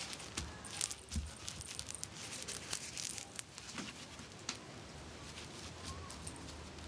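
Light scattered clicks, taps and rustles of Yorkshire terrier puppies scuffling with a toy, with a couple of louder knocks about a second in.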